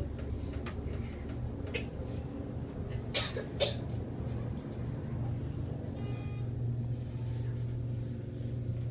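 Elevator car running with a steady low hum. About three seconds in, a child gives two short, high squeals, and about six seconds in there is a brief buzzy electronic tone.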